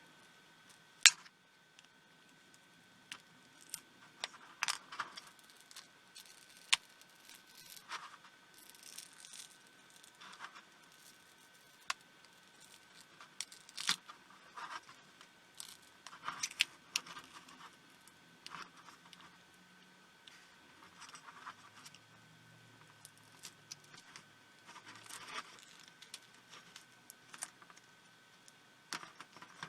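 Scattered sharp clicks, taps and short scrapes of hands and small tools working a small plastic projector housing apart, with a loud click about a second in.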